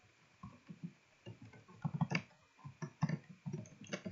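Computer keyboard being typed on: irregular keystroke clicks and thuds, several per second, with a couple of sharper clicks about two seconds in and near the end.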